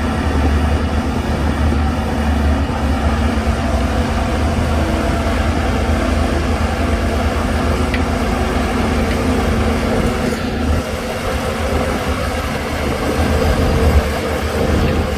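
Heavy diesel engine of earthmoving machinery running steadily under load, with a deep, even drone.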